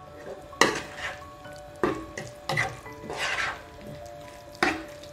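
Spatula stirring boiled potato chunks into onion-tomato masala in a nonstick kadai: about five separate scraping strokes against the pan over a light sizzle.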